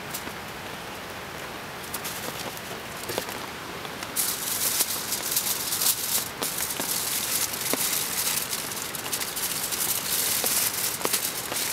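Rain pattering steadily. From about four seconds in, aluminium foil crinkles loudly as it is handled and folded into a packet.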